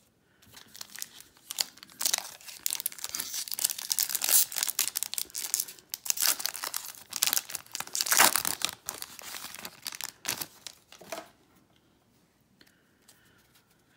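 Wrapper of a baseball card pack being torn open and crinkled by hand, crackling in spurts for about ten seconds before it stops.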